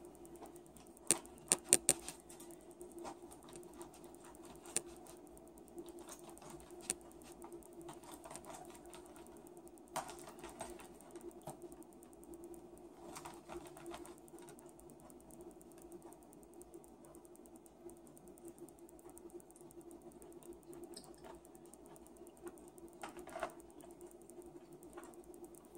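Plastic knife and fork clicking and scraping against plastic takeout containers while cutting food, with a quick cluster of sharp clicks about a second in and scattered single taps after, over a steady low hum.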